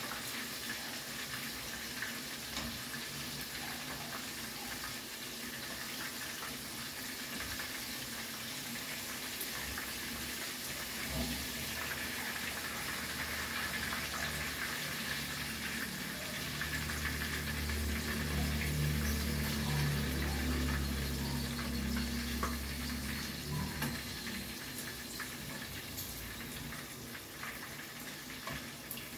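Tempura frying in hot oil in a pan: a steady sizzle, with scattered light clicks of the utensil turning the pieces. A low hum joins it about a third of the way through and stops shortly before the end.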